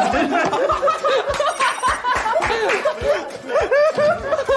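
Several young men laughing loudly together, their peals of laughter overlapping.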